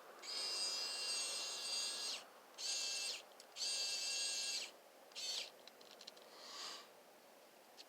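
Small motor and gearbox of a Hyper Tough 4 V rechargeable precision screwdriver running in short bursts, giving a high, steady whine. The first run lasts about two seconds, three shorter ones follow, and the last is faint.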